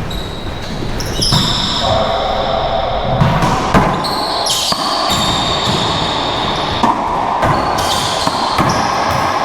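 Racquetball rally in an enclosed court: a run of sharp, irregular cracks as the ball is struck by racquets and smacks off the walls, with high sneaker squeaks on the court floor between the hits.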